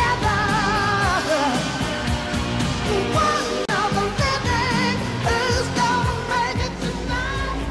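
Pop-rock song: a singer holding long, wavering notes over a regular drumbeat.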